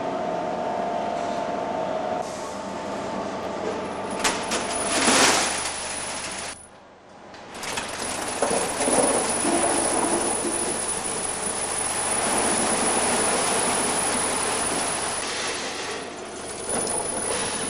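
Bolt-packing machinery running with a steady metallic rattle of steel bolts tumbling and clinking as they are tipped and fed along. The noise breaks off briefly about seven seconds in, then resumes.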